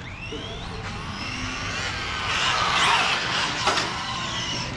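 Brushless electric motor of an RC car whining as it accelerates, its pitch rising in the first second. Then a louder rushing whine builds and peaks about three seconds in, with a sharp click shortly after.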